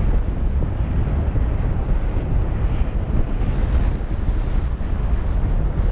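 Airflow buffeting the camera's microphone during paraglider flight, a steady low rushing noise.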